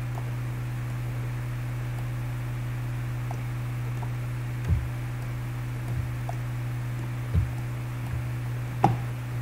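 Steady low electrical mains hum on the recording, with four soft thumps in the second half, the last with a sharp click on top.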